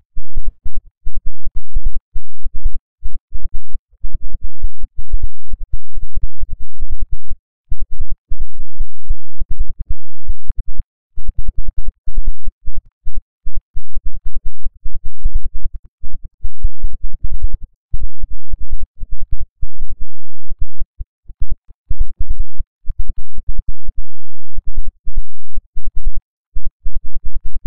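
Heavily distorted, clipped audio chopped into rapid stuttering bursts, mostly a low rumble. It is the sound track mangled by video-editing effects.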